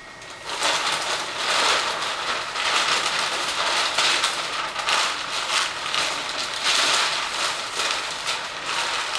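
Paper wrapping of a steamed silk bundle crinkling and rustling as it is unrolled and pulled back by hand. It is a dense run of crackles that starts about half a second in.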